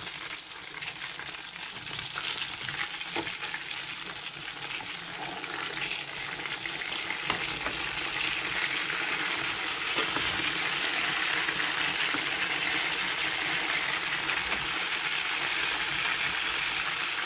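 Whole tilapia frying in hot oil in a pan: a steady sizzle that grows louder about halfway through, with a few light clicks.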